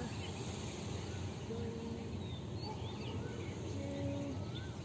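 Outdoor ambience: a steady low background noise with scattered small bird chirps and a few short, held whistle-like notes.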